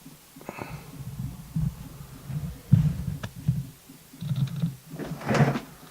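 Irregular small clicks and knocks of a pin-tumbler lock cylinder and hand tools being handled while the lock is taken apart, with one sharper click a little under three seconds in and another near the end.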